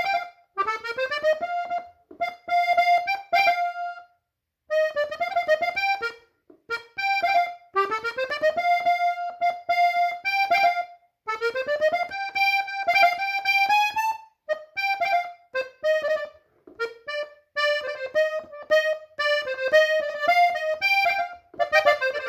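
Blue Hohner diatonic button accordion in F playing a norteño melody in B-flat on its treble buttons, in short phrases separated by brief pauses, with hardly any bass.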